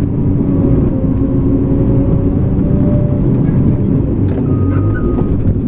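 Cat D5K2 crawler dozer's diesel engine running steadily under working load, its pitch wavering slightly, with a few light clinks near the end.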